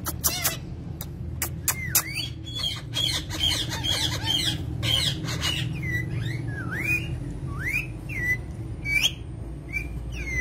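Parrot calling: short squawks and repeated whistled chirps that swoop down and back up in pitch, mixed with many sharp clicks, over a steady low hum.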